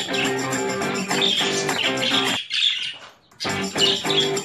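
Budgerigars chirping over plucked-guitar music. Past the middle the music and chirps drop out for about a second, then start again.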